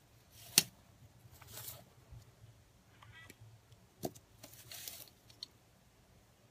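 Handling noises: a sharp click, a rustle, a second click, then a longer rustle and a small click, as things are moved about close to the microphone.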